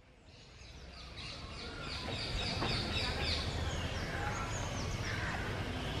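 Birds calling in a run of short, high, falling chirps, then scattered calls, over a low steady outdoor rumble; the sound fades up from faint over the first two seconds.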